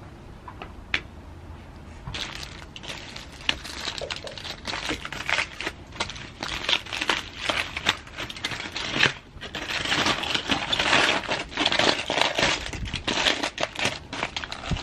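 Aluminium foil crinkling and rustling as a foil-wrapped takeout parcel is unwrapped by hand. It starts about two seconds in as a dense run of crackles and grows louder toward the end.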